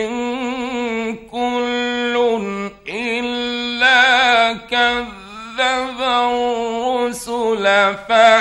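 Male Quran reciter chanting in the melodic mujawwad style: long held notes with rich wavering ornaments, in several phrases broken by short pauses for breath. It is an archival 1960s Egyptian radio recording with a faint steady hum underneath.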